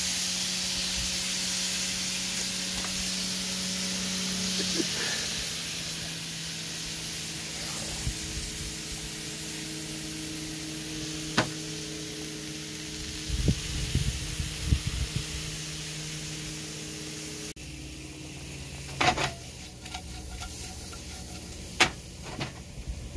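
Shrimp sizzling steadily in a hot frying pan. The sizzle drops away suddenly about two-thirds of the way through, and a few sharp knocks follow.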